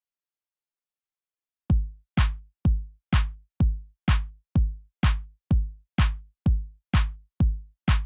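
Silence, then about a second and a half in, electronic background music starts: a steady drum-machine kick drum, about two beats a second, each hit falling in pitch.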